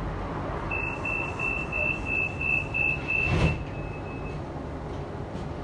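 Steady traffic rumble with a high electronic beep repeating about three times a second for about three seconds, fading out near the end. A short, loud whoosh comes about three and a half seconds in.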